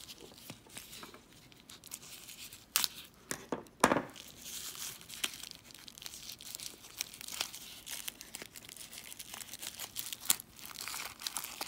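Yellow paper wrapping of a small packet being torn and unfolded by hand, crinkling and crackling throughout, with two louder sharp rips about three and four seconds in.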